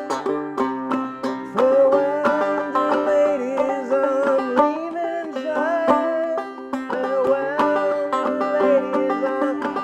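Clawhammer banjo playing an old-time tune at a steady rhythm, with a voice carrying a slow melody over it from about a second and a half in.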